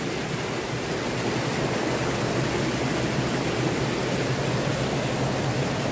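Water running over rocks in a small stream, a steady rushing noise.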